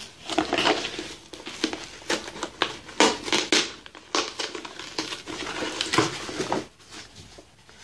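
Crinkling and rustling of packaging as a sealed cardboard subscription box is opened, with irregular sharp crackles, the loudest about three seconds in.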